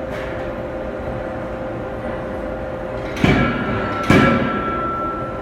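Anyang 25 kJ CNC hydraulic forging hammer striking two heavy blows about a second apart, the second the louder, over a steady machine hum. A high metallic ringing lingers after the blows.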